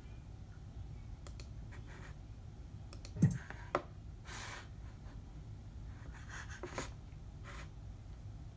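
Faint, irregular typing on a keyboard: scattered key taps and clicks at uneven intervals, with one louder thump a little over three seconds in.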